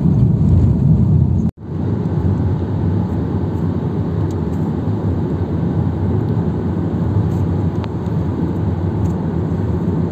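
Steady low road and engine rumble inside a vehicle's cabin while driving at highway speed, cut off for an instant about one and a half seconds in and then continuing unchanged.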